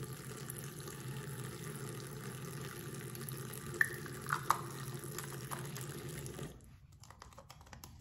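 Bathroom sink faucet running, its stream splashing into the basin and a small plastic bottle as the bottle is topped up with water; the water shuts off suddenly about six and a half seconds in. A few sharp clicks sound midway, and faint clicks follow after the water stops.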